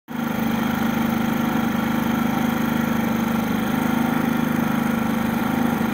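Predator 3500 inverter generator's single-cylinder engine running at a steady speed, an even, unchanging hum.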